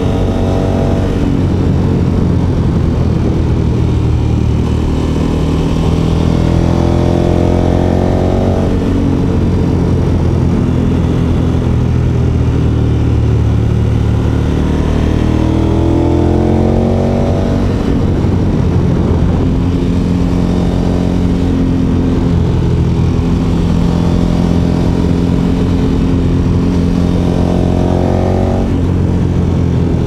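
KTM 1290 Super Adventure S's big V-twin engine running at road speed, with wind rush. The engine note climbs in pitch three times as the rider opens the throttle.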